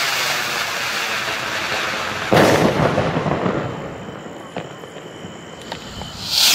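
ATLAS 1700 firework rockets. The hiss of one rocket climbing fades out, and a little over two seconds in it bursts with a loud bang that dies away. A few faint sharp cracks follow, and near the end the next rocket launches with a rising hiss.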